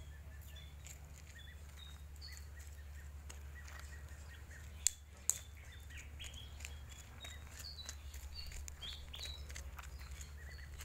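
Small birds chirping in short, high notes, with scattered light clicks and two sharp clicks about five seconds in, over a low steady hum.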